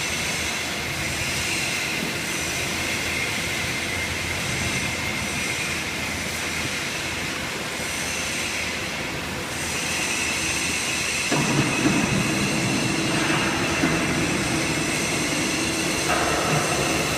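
Paper baler running: a steady mechanical noise with several high whining tones, growing louder and heavier about eleven seconds in.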